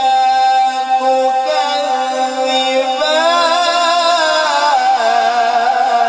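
A man's voice chanting Quranic recitation (tilawat) in the melodic style through a PA system. He holds one long steady note, then moves about three seconds in into a wavering, ornamented line.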